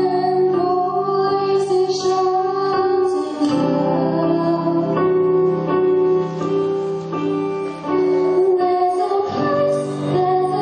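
Group of teenagers singing a pop ballad live, with guitar and piano accompaniment.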